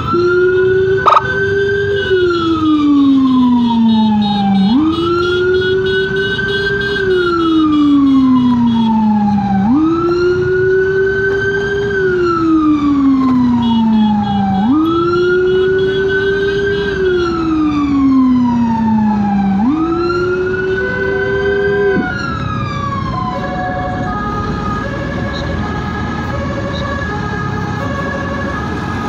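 Emergency vehicle siren on a slow wail, each cycle sweeping quickly up and then falling slowly over about five seconds, five times. About 22 seconds in it changes to a steady tone with short repeating beeps. A sharp click comes about a second in, over road noise.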